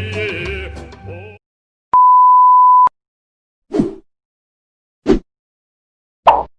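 A music clip stops about a second and a half in. It is followed by a single steady censor bleep lasting about a second, then three short, separate sounds about a second apart, the last the loudest.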